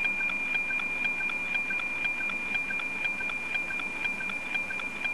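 NOAA 18 weather satellite's APT downlink demodulated by an SDR receiver in narrow FM: a steady high tone with an even, clock-like ticking at about four ticks a second, the image line sync pulses of the satellite's weather-picture signal.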